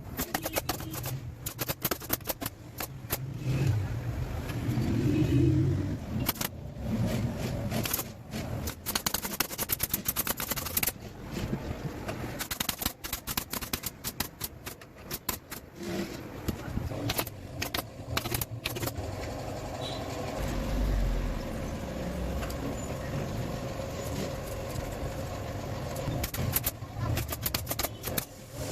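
Sofa-building work with hand tools: irregular sharp clicks and knocks, some in quick runs, over a steady low rumble.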